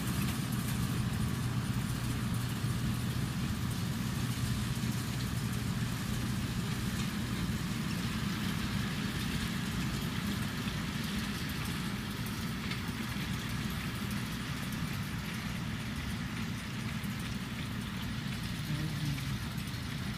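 An engine running steadily, a constant low hum that holds level throughout.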